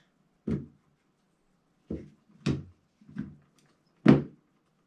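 Hard plastic Milwaukee 18 V battery packs set down and stacked against one another on a table: a string of about five short clunks, the loudest near the end.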